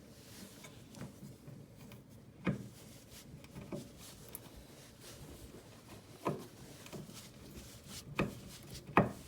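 Parts of a flat-pack TV stand being worked on by hand during assembly: faint rubbing with five sharp knocks at uneven spacing, the last near the end the loudest.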